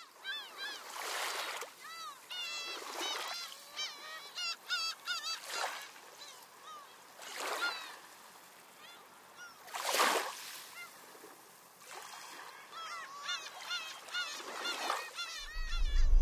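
Birds calling: many short, arched, honking calls that repeat and overlap, with a soft rush of noise that swells and fades every couple of seconds, loudest about ten seconds in.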